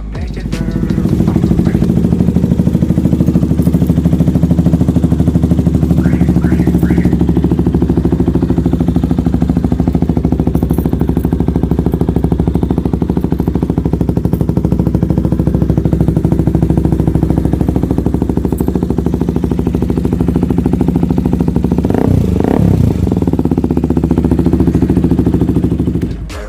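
KTM RC200's single-cylinder four-stroke engine idling through an aftermarket open slip-on exhaust. The idle is loud and steady, with one short rev that rises and falls in pitch near the end.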